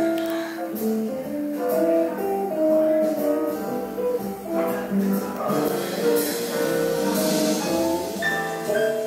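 Background music: a melody of short pitched notes over a light, regular percussion beat.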